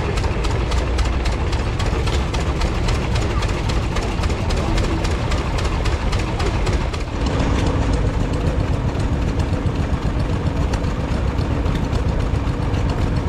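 Vintage stationary petrol/paraffin engines running, a fast even beat of about five firing strokes a second. The sound changes about seven seconds in as a different engine is heard.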